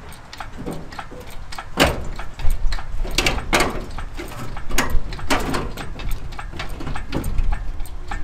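Orange hydraulic engine hoist being pumped by hand against the chained engine: a string of creaks and clanks, about one stroke a second, louder from about two seconds in.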